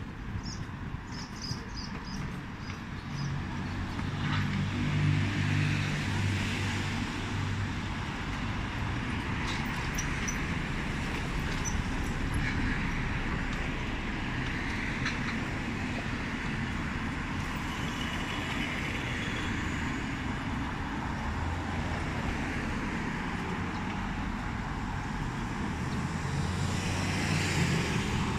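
City street traffic: cars and scooters passing, with a steady low engine rumble and tyre noise. It swells louder about five seconds in and again near the end.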